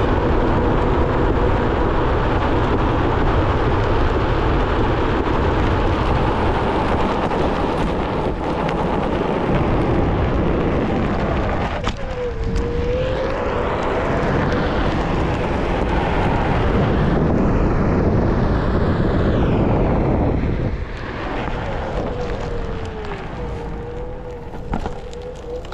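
Wind rushing over the microphone and the tyre rolling on pavement as a Onewheel GT-S rides along, with a thin hub-motor whine that wavers up and down with speed. The rush gets quieter about twenty seconds in.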